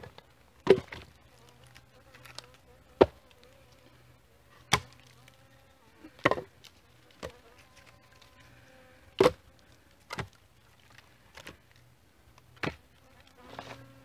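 Split firewood knocking against other wood as pieces are set one by one onto a woodpile: about nine sharp wooden knocks, a second or two apart, over a faint steady buzz.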